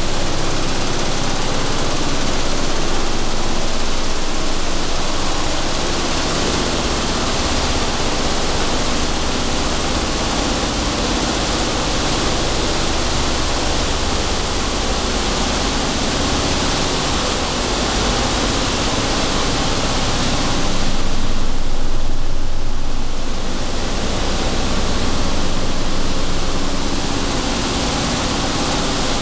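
Steady loud din of seed-cleaning and separating machinery running, with vibrating screen decks carrying sunflower seeds: an even rushing hiss over a low motor hum. The hiss briefly dulls about three-quarters of the way through.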